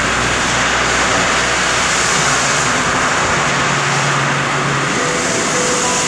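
CNC lathe running with flood coolant spraying inside its closed enclosure: a loud, steady hiss.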